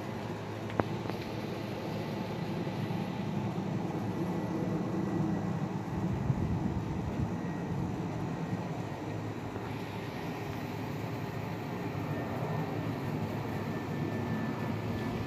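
Jet engines of an Airbus A320neo airliner passing high overhead: a steady distant low rumble, with a faint thin whine at times. A single sharp click about a second in.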